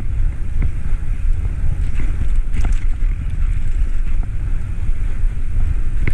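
Wind buffeting the microphone of a camera on a moving bicycle, a steady low rumble with a few faint clicks and rattles from the bike as it rolls over the paved path.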